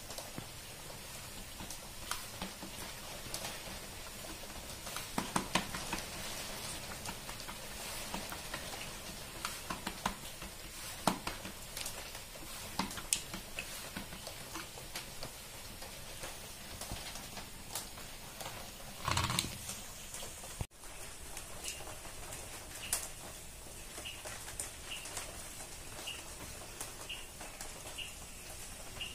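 Hands patting and pressing finger-millet bhakri dough flat on a flour-dusted steel plate: soft, irregular pats with light clicks, and a louder bump just before a brief dropout. After the dropout, a faint regular ticking about once a second.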